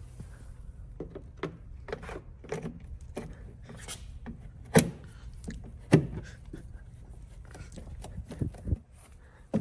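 Hands fitting an LED illuminated door sill plate into the door-opening trim of a C8 Corvette. Scattered rubbing and light clicks, with two sharp knocks about five and six seconds in, as the sill's tabs are lined up and pressed into place.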